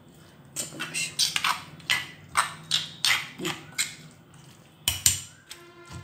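Stone pestle pounding onion into a coarse black gram chutney paste in a stone mortar: a run of dull strikes about three a second, a short pause, then one more strike near the end.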